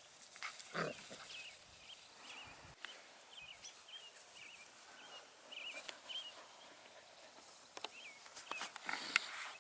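Puppies squeaking and yelping as they play, a run of short high squeaks in the middle and a louder yelp about a second in, with scuffling and small knocks.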